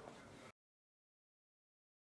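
Near silence: faint room tone that cuts out completely about half a second in, leaving dead silence.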